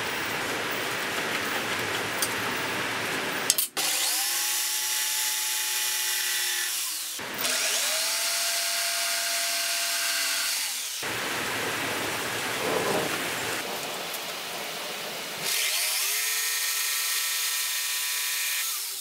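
Electric jigsaw (Black & Decker) cutting pine 1x2 boards: a steady motor whine that spins up with a rising pitch, alternating with rougher stretches of blade-cutting noise. The sound breaks off and starts again abruptly several times.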